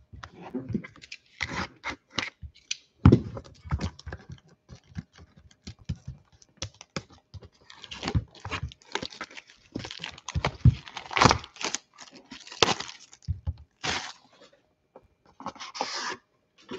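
Hands unsealing and opening a cardboard Panini One trading-card box: irregular tearing, rustling, clicks and taps on the cardboard, with a longer scraping rustle near the end as the inner box slides out of its sleeve.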